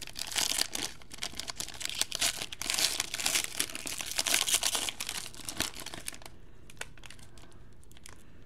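Foil wrapper of a 2015 Panini Playbook football card pack torn open and crinkled as it is peeled off the cards, crackling densely for about six seconds, then only a few light rustles and clicks as the cards are handled.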